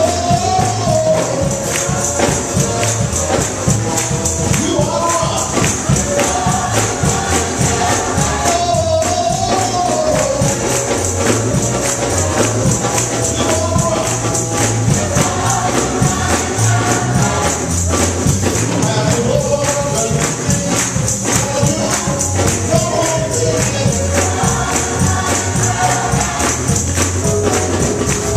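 Gospel choir singing with hand clapping and a tambourine shaking on the beat, over a steady deep bass.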